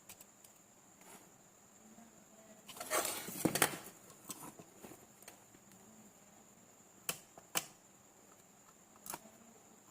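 Handling noises as an IC chip is fitted onto a battery charger's circuit board: a short rustle and scrape about three seconds in, then a few sharp single clicks.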